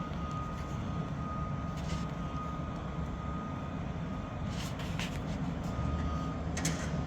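Steady low machinery hum with a thin, steady high whine over it, and a few faint light clicks about two, five and six and a half seconds in.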